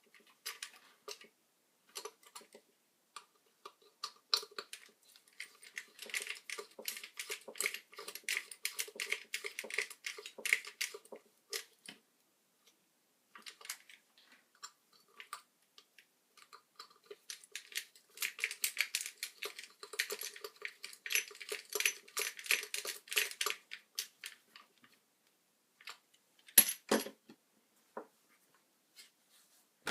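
Small hand-work noises: rapid clicking, scraping and rattling of small hard parts in two long stretches, with a single sharp knock near the end.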